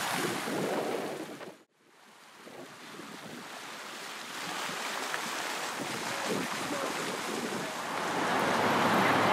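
Steady splashing of a plaza fountain's water jets, cut off abruptly about two seconds in. An open-air city wash then fades back in and grows louder near the end as traffic noise comes up.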